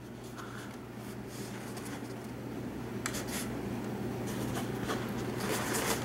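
Crumpled packing paper rustling and crinkling in a cardboard box as hands dig through it and lift out a faux rock, growing busier toward the end.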